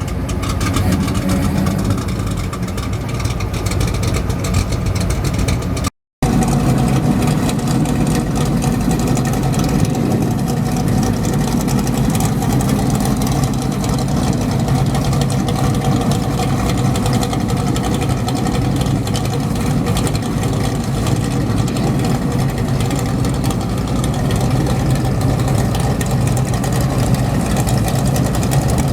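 Car engines running at low speed with a steady low rumble, cut off for a moment about six seconds in before the same kind of engine sound resumes.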